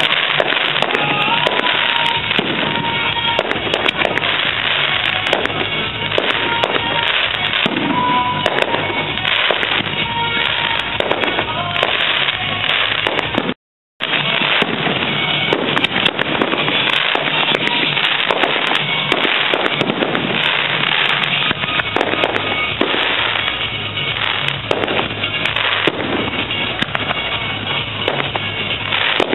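Fireworks display: a continuous, dense barrage of bangs and crackling. It cuts out completely for a split second about halfway through.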